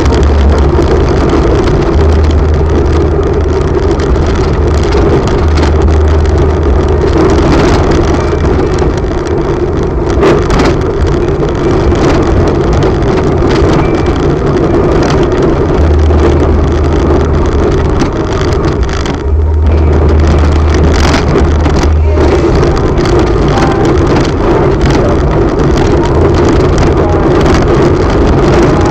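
A vehicle driving along a stone-paved street: its engine running with a low hum that comes and goes in stretches, mixed with loud road rumble and wind noise on the microphone.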